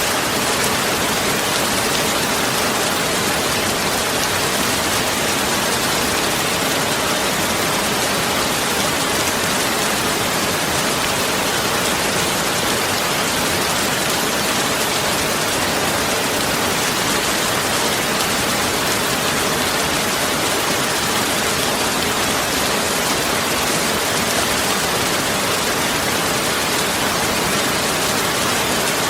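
Steady, even hiss of noise like heavy rain or falling water, unchanging throughout.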